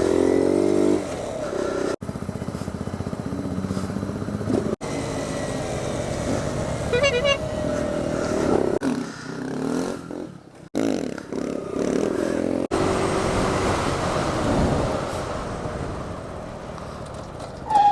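Motorcycle engine running while riding, its pitch rising and falling with the throttle, broken by several abrupt cuts.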